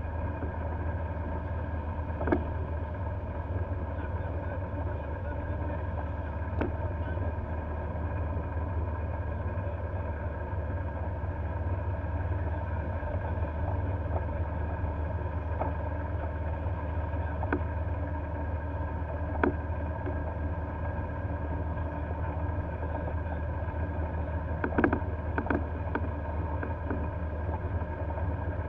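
Golf cart driving at a steady slow speed, a continuous low hum with a faint whine above it, heard from on board. Several sharp knocks and rattles stand out, a cluster of them near the end.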